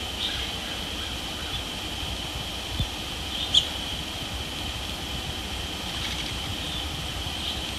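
Outdoor pond ambience: a steady high-pitched hum over a low rumble, with a few short sharp clicks, the sharpest about three and a half seconds in.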